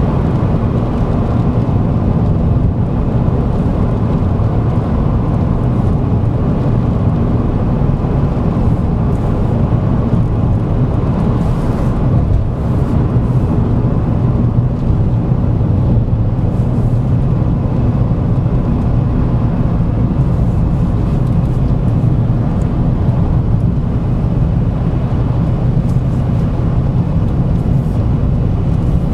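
Steady engine drone and road noise of a Vauxhall Agila, heard from inside the cabin while driving along.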